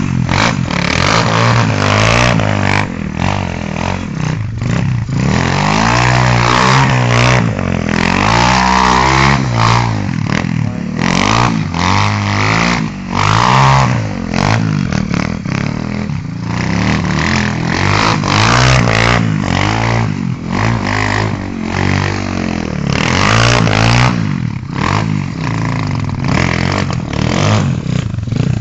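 Pit bike's small single-cylinder engine revving up and down over and over while doing donuts on snow, its pitch rising and falling every second or two.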